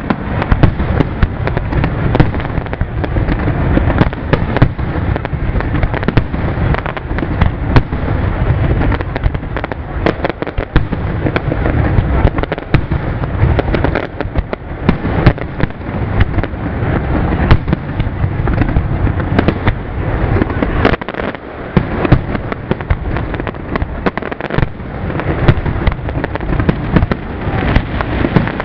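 Zambelli professional fireworks display: aerial shells bursting in a near-continuous rapid barrage of booms and cracks, with a constant low rumble between the bangs.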